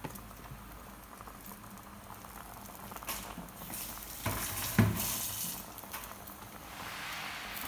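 Pot of chicken ginger soup bubbling at a simmer under a layer of pechay leaves, a steady crackling hiss. A single sharp knock a little past halfway.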